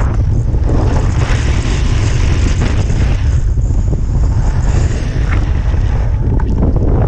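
Wind rumbling heavily on an action camera's microphone during a snowboard run, with the board sliding and scraping over the snow in surges.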